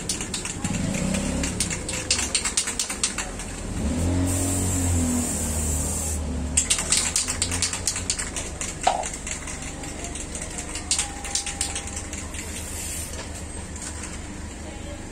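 Aerosol spray-paint can being shaken, its mixing ball rattling in quick runs of clicks. About four seconds in there is a short spray hiss with a low rumble under it.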